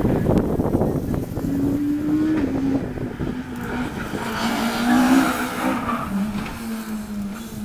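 Ford Fiesta rally car's engine running hard through a tight turn and passing close, its pitch stepping up and down with throttle and gear changes. A loud burst of crackling comes at the start, and tyre squeal comes as the car goes by about five seconds in.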